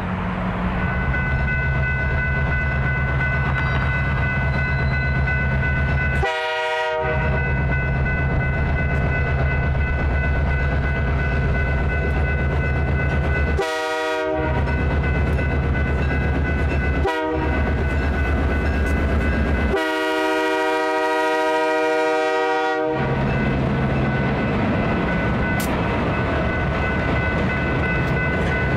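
East Penn Railroad GP38-3 No. 2800 diesel locomotive passing at close range over a low, steady engine drone, sounding its horn four times: two long-ish blasts, a very short one, then a long one of about three seconds, the grade-crossing pattern. Freight cars roll by behind it, with a steady high whine alongside.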